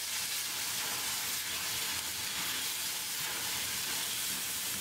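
Sliced pork, garlic scapes and wood ear mushrooms sizzling in oil in a hot iron wok as a spatula stirs them: a steady, even hiss.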